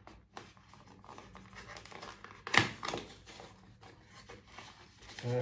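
Packaging being torn and worked open by hand: scattered rustles and small clicks, with one sharp snap about two and a half seconds in.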